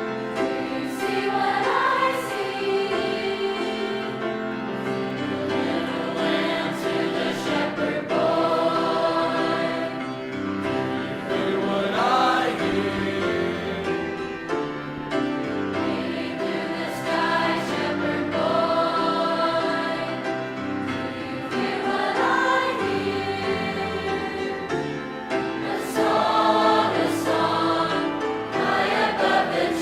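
A mixed high-school choir singing a Christmas song, with many voices holding chords together.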